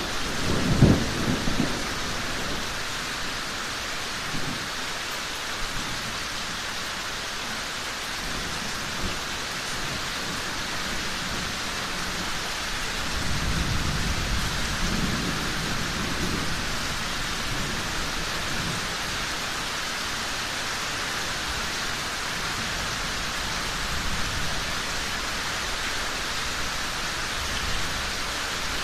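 Steady rain falling, with thunder: a loud clap and rumble about a second in, and a longer, softer rumble around the middle.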